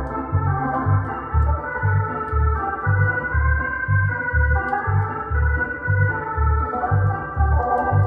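Viscount Legend drawbar organ playing a tune, melody on the upper manual over chords on the lower manual, with a bass note on each beat, about two a second.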